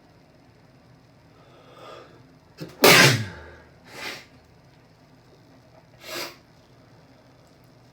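A single loud allergy sneeze about three seconds in, part of a sneezing fit, preceded by a faint catching breath. Two short, quieter breath sounds follow, about a second and three seconds after the sneeze.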